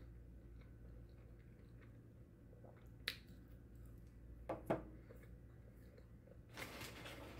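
A person chewing food, faint, over a low steady hum, with a sharp click about three seconds in, a louder mouth sound a little after the middle, and a noisier stretch of crunching near the end.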